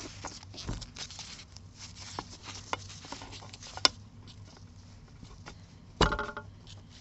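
Small metal clicks and scrapes of hand tools working a stuck pin out of an old revolver's frame. There is a sharp click just before the fourth second, and about 6 seconds in a louder metallic clank that rings briefly.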